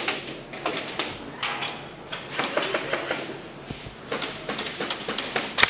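Airsoft guns firing in irregular bursts of sharp snaps and clicks.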